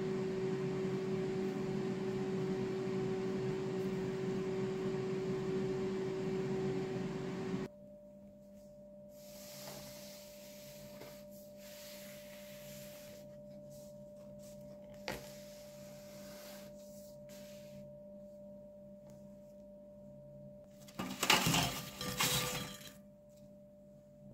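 A steady hum with a held tone, like a running kitchen appliance, cuts off about eight seconds in, leaving quiet room tone and a single click. Near the end comes a brief loud clatter of crockery with a ringing note.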